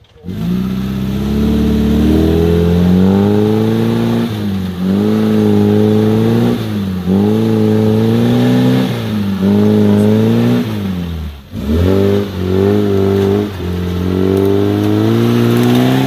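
Suzuki Vitara's engine revving again and again under load while crawling through a deep rut, the pitch climbing and dropping every couple of seconds, with a brief dip to near idle about two-thirds of the way through.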